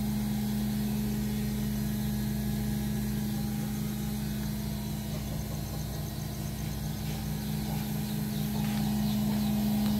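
A motor running steadily, giving an even low hum that does not change.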